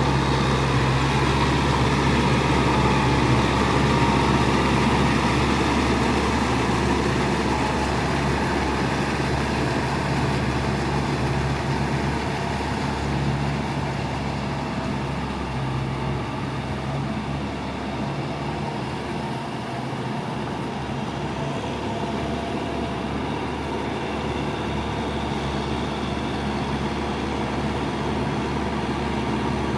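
Kubota farm tractor's diesel engine running steadily under load while it works a muddy paddy field, easing off slightly about halfway through.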